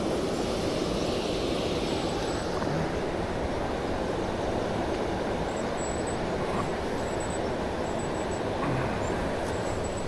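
Steady rushing of creek water running over a small weir, an even noise with no change in level.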